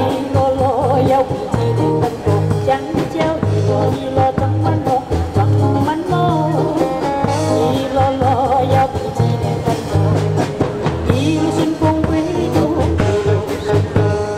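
Live band music over a PA: a woman singing with vibrato into a microphone over electric guitar, a moving bass line and a steady beat.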